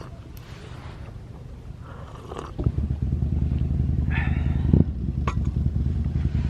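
A vehicle engine running with a low, fast-pulsing drone that gets abruptly louder about two and a half seconds in, with a few light clicks and a short scrape.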